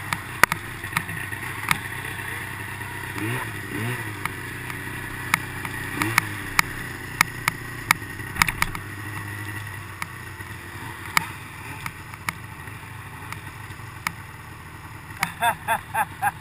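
Snowmobile engine running as the sled rides through snow, with brief revs a few seconds in and again around six seconds, then easing off after about ten seconds. Scattered sharp clicks and knocks sound over it, and a quick run of short bursts comes near the end.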